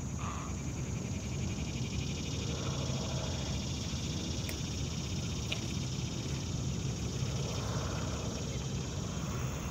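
Late-summer salt-marsh ambience: a steady high-pitched insect chorus with a fast pulsing trill beneath it, over a low rumble.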